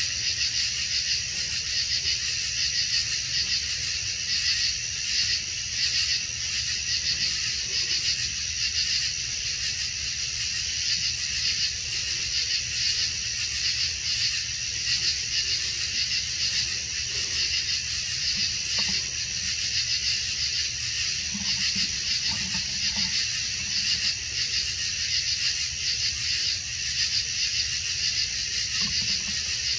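A steady chorus of night insects chirring, a dense high trill with a fast pulse, over a low steady rumble.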